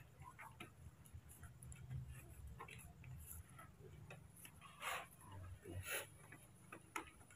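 Quiet room tone with faint scattered ticks and light clicks, and two sharper short clicks about five and six seconds in.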